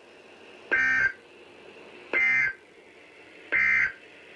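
Three short bursts of Emergency Alert System SAME data tones from NOAA Weather Radio, about a second apart: the end-of-message code that closes a warning.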